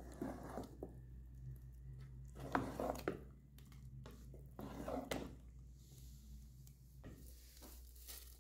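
Spoon stirring thick haleem in a pot: soft squelching of the paste with a few sharp clicks of the spoon against the pot, over a low steady hum.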